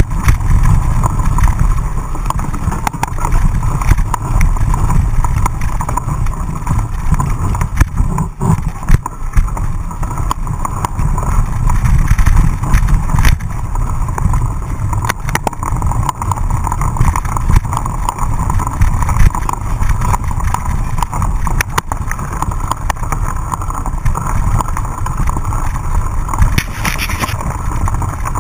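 A mountain bike ridden fast over a rough dirt and gravel trail, heard through a camera mounted on the bike: steady wind rumble on the microphone, with frequent sharp knocks and rattles as the bike hits bumps.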